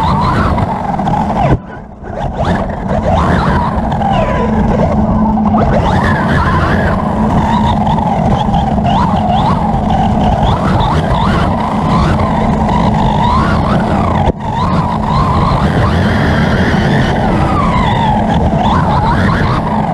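Hobbywing SCT 3600kv brushless motor and geared driveline of a 1:8 scale electric R/C buggy whining up and down in pitch as the throttle is worked, over a steady rumble of tyres on the dirt track, heard from a camera mounted on the chassis. The sound drops out briefly twice, about a second and a half in and again about three-quarters of the way through.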